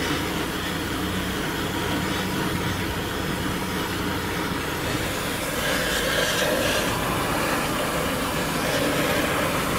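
Oxy-fuel torch flame hissing steadily as it heats the rusted hub nuts of a bus wheel, getting somewhat louder about six seconds in. An engine idles underneath.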